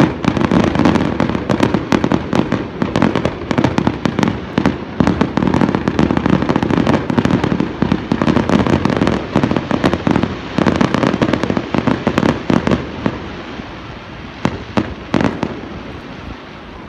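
Fireworks display: a rapid barrage of shell bursts and crackling, thinning out about thirteen seconds in to a few last separate bangs.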